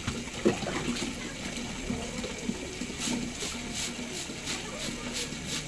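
Water sloshing and splashing as a plastic dipper scoops from a plastic drum of water, with a knock about half a second in. In the second half there is a quick repeated swishing, about three strokes a second.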